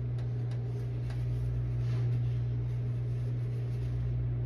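Over-the-range microwave's vent fan running above the stove with a steady low hum, with a few faint light clicks from apples and sticks being handled.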